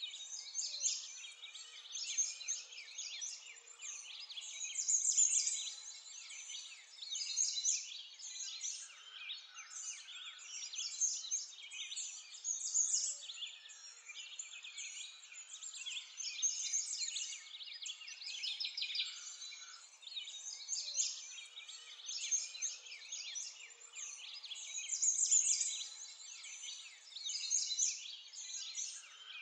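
A chorus of many small songbirds chirping and singing without pause, a dense tangle of short high calls that swells and fades every few seconds.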